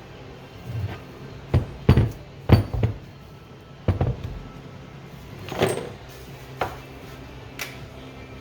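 A series of irregular knocks and clatter, the loudest about two seconds in, typical of tools and brake parts being handled, over a steady low hum and quiet background music.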